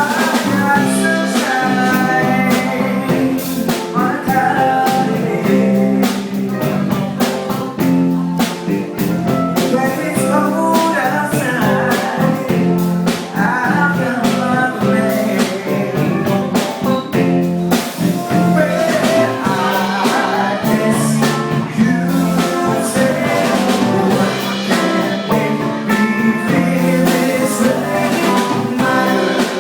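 A band playing a song: a singer over guitar and a drum kit with a steady beat.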